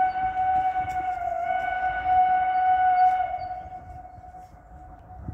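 Whistle of narrow-gauge steam locomotive no. 490,039 blowing one long blast at a steady pitch, fading away about four seconds in.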